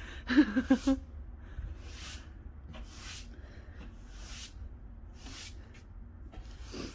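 Broom sweeping snow off a trailer roof: short swishing strokes, about one a second, over a steady low rumble.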